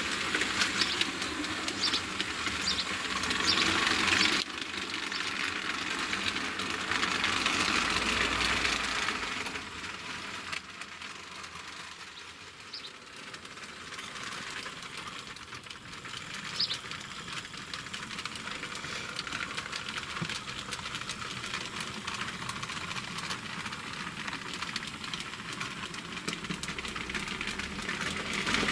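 Model railway trains running along the track: a steady rolling rattle of small wheels on rail. It is louder through the first half and drops to a quieter run after about ten seconds.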